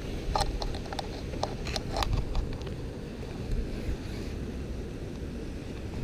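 Steady low rumble of wind on the microphone, with a handful of small clicks and rustles from handling in the first two seconds.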